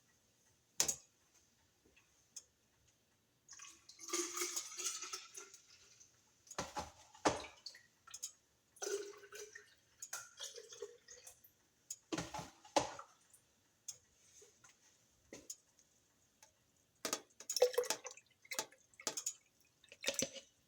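Kitchen handling sounds: a short pour of tea into a cup about four seconds in, rising slightly in pitch as it fills, then scattered clinks and knocks of ice, cups and utensils.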